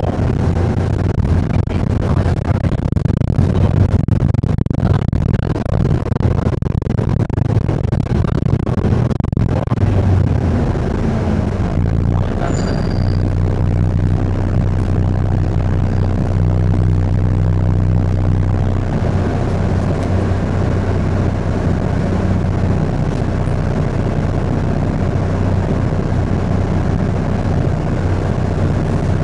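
City bus engine running with road noise, heard from inside the moving bus; the low engine note shifts a few times as the bus changes speed. Light knocks and rattles come through in the first ten seconds, and a short faint high beep sounds about halfway through.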